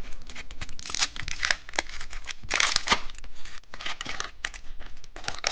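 A plastic candy wrapper being torn open and crinkled by hand, with quick crackling rustles and clicks in bursts.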